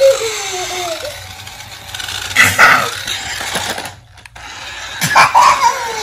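A toddler's voice: a long cry that falls in pitch at the start and another about five seconds in. Between them, a brief clatter of toy handling.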